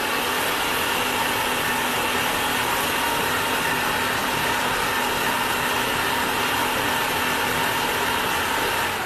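Electric food processor running steadily, its blade grinding beef meatball paste for the final mix after sago flour has been added.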